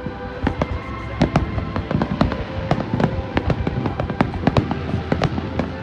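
Fireworks display: a rapid barrage of shell bursts, many overlapping bangs a second, growing denser after about a second.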